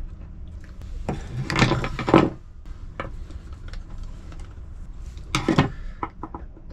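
Clicks, scrapes and light taps of lead came and glass being pressed and worked into a wooden jig by hand and with a small tool. There are two busier clusters, about a second in and again past five seconds.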